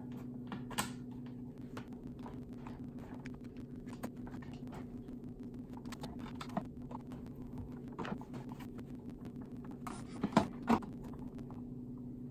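Hand screwdriver driving the three screws that hold the plastic motor cover on a Suncast Aquawinder hose reel: a run of small irregular clicks and ticks, with a few louder knocks about ten seconds in.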